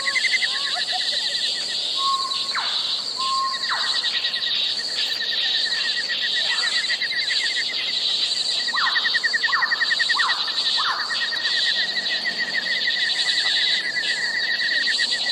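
Forest insect chorus: a dense, steady, high buzzing trill with a second, lower, rapidly ticking trill beneath it. Several short calls slide downward in pitch over it, once at about three seconds, once at about four, and three in quick succession around nine to eleven seconds.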